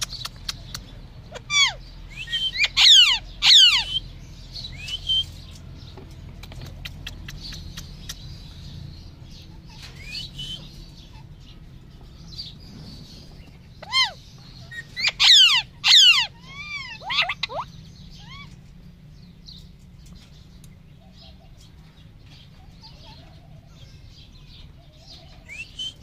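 Alexandrine parakeet calling: two loud bouts of sharp, sweeping screeches, one about two seconds in and another about fourteen seconds in, each lasting a few seconds, with a few fainter chirps between.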